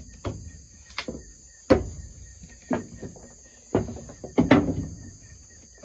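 Hammer knocking on wooden boards, several uneven blows roughly a second apart, with a pair close together near the end. Crickets chirr steadily behind.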